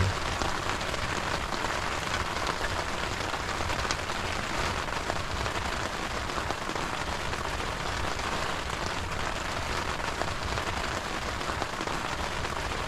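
Steady rain falling on a tent's fabric, heard from inside the tent.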